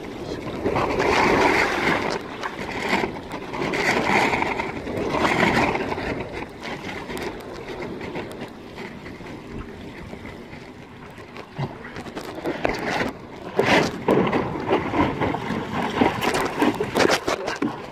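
Wind and water rushing over a wingfoiler's board and wing, picked up by a phone inside a life-jacket pocket, swelling and easing in waves. Sharp knocks come in the last few seconds as the noise grows again.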